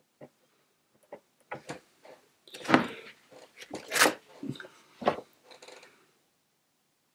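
Paper towel being handled and crinkled: a run of short rustles and light knocks, loudest about three and four seconds in.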